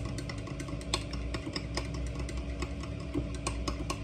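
Light, irregular clicks and taps of kitchen items being handled at a counter, over a steady low hum.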